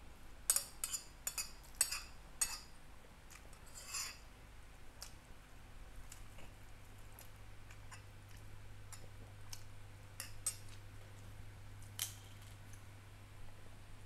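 Metal spoon clinking and scraping against a glass plate while scooping rice: a quick run of sharp clinks in the first couple of seconds, a short scrape about four seconds in, then scattered lighter taps and one more clink near the end.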